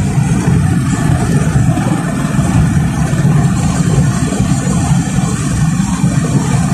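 Steady low rumble of a car driving at speed, heard from inside the cabin: road, tyre and engine noise.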